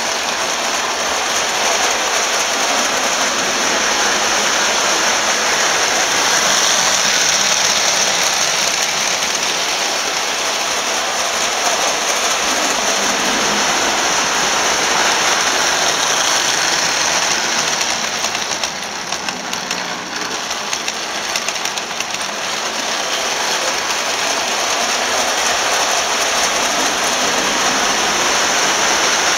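Vintage Marx electric toy trains running on three-rail tinplate track: a steady rattling whir of small motors and metal wheels. It dips briefly about two-thirds of the way through, then builds again toward the end as a train approaches.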